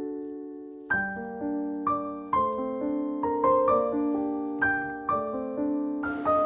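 Background piano music: a calm melody of single struck notes over held lower notes, picking up again about a second in after a lingering note. A faint hiss joins just before the end.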